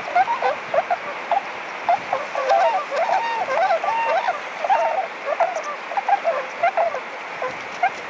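A flock of waterfowl calling: many short honking calls overlapping over a continuous chorus of more distant calls.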